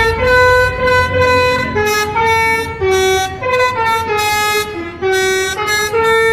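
Bus telolet musical air horn playing a quick snake-charmer-style 'basuri' tune, one short held note after another at changing pitches, over a low rumble.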